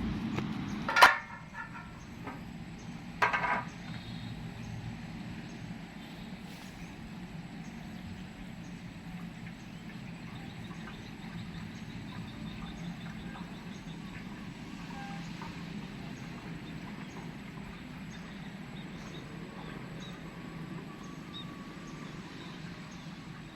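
Flail mower's 15 hp Hyundai engine running steadily, with two sharp knocks about one and three seconds in.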